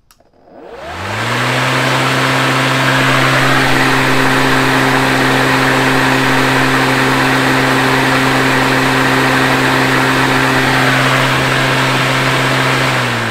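TackLife 40-volt cordless lawn mower's electric motor and blade spinning up with a rising whine about half a second in. It then runs steadily, unloaded, with a hum and a rush of air, and starts winding down near the end.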